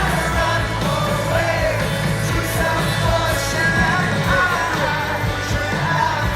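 Indie rock song: a lead vocal singing a melody over a full band with strong bass and drums.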